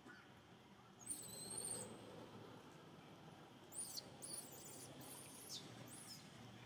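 Faint, high-pitched animal calls. About a second in comes a thin squeak held for under a second, then four short calls that each fall in pitch.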